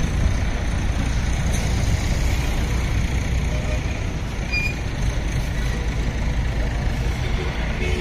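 Heavy diesel engine of a truck or crane running steadily with a low rumble.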